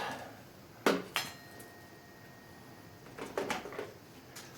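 Garage door opener parts being handled and set down: two sharp clacks about a second in, the second ringing faintly, then a softer patch of clatter and a last knock near the end.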